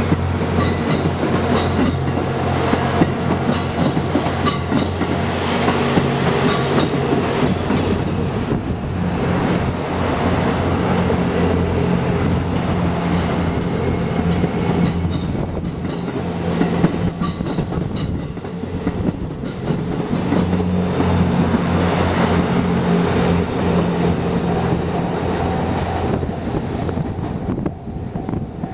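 JR West 87-series Twilight Express Mizukaze diesel-electric train passing close by: the diesel engines hum, fading in the middle and coming back as further cars go by, over the clicking of wheels on the rail joints.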